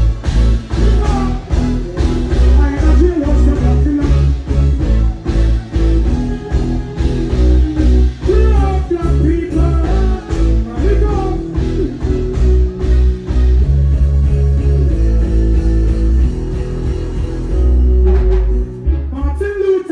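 Loud live reggae band music with heavy bass and a steady drum beat, and a man's voice singing over it.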